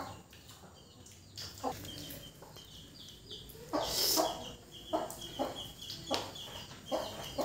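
Chickens clucking in short calls, with a high, rapidly pulsing chirp from about two seconds in to near the end.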